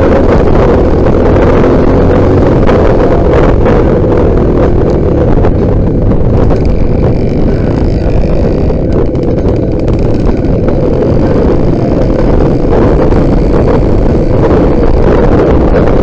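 Trail motorcycle engine running while riding, mostly buried under heavy wind buffeting on the microphone.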